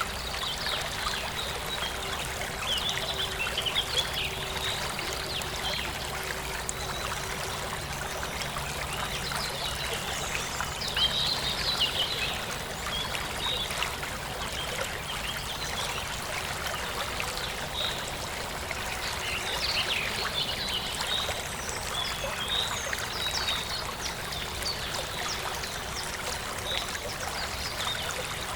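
Forest stream running steadily over stones, with small birds chirping throughout.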